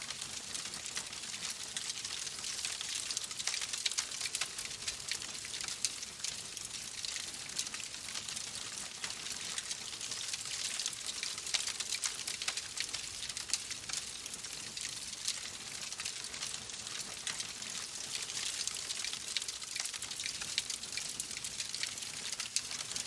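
Oak logs burning in a fireplace: a steady hiss with many small, sharp crackles and pops throughout.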